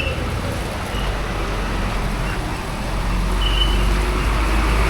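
Bus engine rumbling low, growing louder over the last couple of seconds as it comes closer. A few brief high-pitched peeps sound over it.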